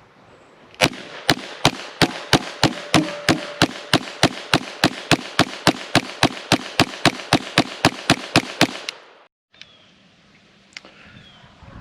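Kel-tec Sub 2000 9mm carbine fired semi-automatically in a rapid, even string of about 28 shots, roughly three and a half a second, emptying the magazine into a pumpkin; the shooting stops about nine seconds in.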